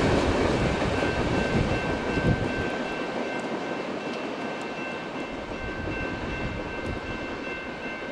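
Freight train rolling past on the rails, its rumble and wheel noise fading steadily as it moves away. A faint steady high tone runs over the rail noise from about a second in.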